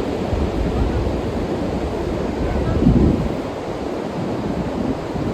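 Sea surf washing onto a beach, with wind buffeting the microphone. A wave surges a little before three seconds in, and the wind rumble eases after it.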